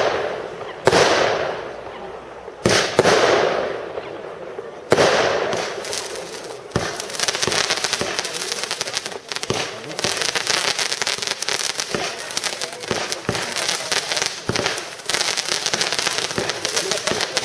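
A 92-shot compound firework cake firing. Three loud bursts come in the first five seconds, each dying away over a second or two. From about seven seconds in there is dense, continuous crackling.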